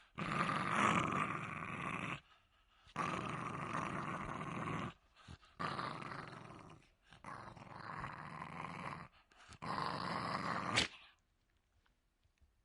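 Jack Russell Terrier growling in five long, rough growls with short breaks between them, stopping about eleven seconds in.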